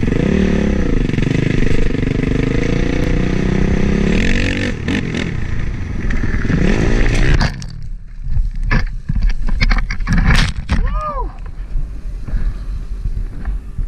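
Dirt bike engine revving up and down, heard with wind rushing over the on-board camera's mic. About seven and a half seconds in, the engine sound drops away suddenly and scattered knocks and scrapes follow, with a short rising-and-falling pitched sound about eleven seconds in: the bike going down in the gravel.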